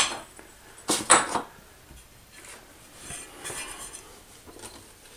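Steel trowel clinking and scraping as thinset mortar is scooped up and spread: a sharp clink at the start, two more about a second in, then softer scraping.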